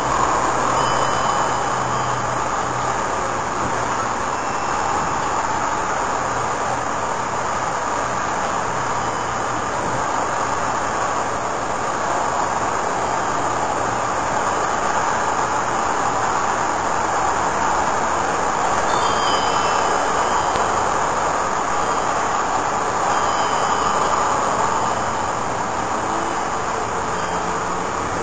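Steady rushing background noise, with a few faint, short high chirps now and then.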